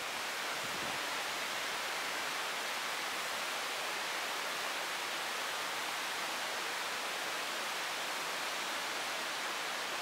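Waterfall: water pouring down a steep rock face, a steady, even rush of water.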